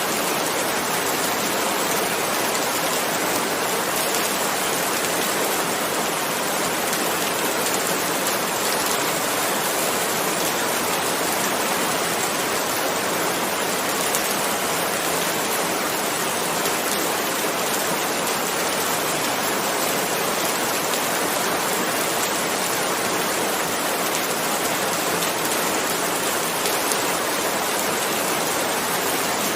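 Steady rushing water noise, a dense, even hiss weighted toward the higher frequencies with little low end and no single drops or splashes standing out.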